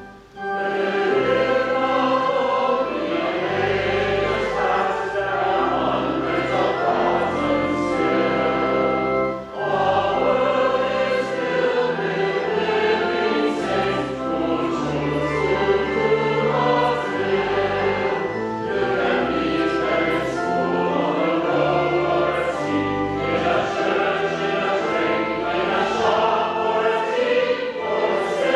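A church choir singing with organ accompaniment, with a brief break about a third of the way through.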